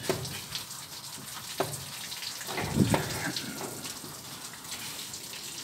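A few short knocks from metal pump parts being handled and fitted, over a steady background hiss.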